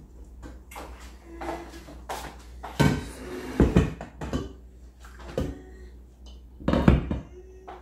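A stainless steel cooking pot and its glass lid clanking as the pot is set down on a counter and the lid is lifted off. There are several separate knocks with a short metallic ring, the loudest near the end.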